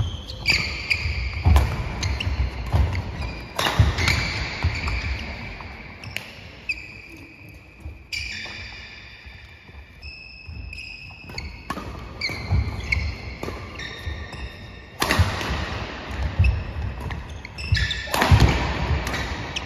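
Badminton doubles play on a wooden sports-hall floor: sharp racket hits on the shuttlecock, feet thudding on the boards and short high shoe squeaks as the players move. Near the end comes a loud jump smash.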